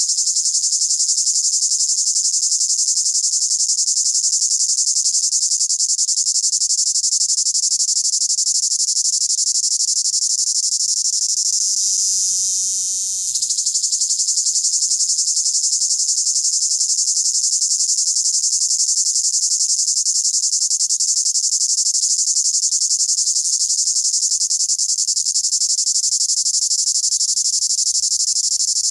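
Cicada calling from a tree: a steady, high, dense buzz that weakens for a moment about twelve seconds in, then comes straight back at full strength.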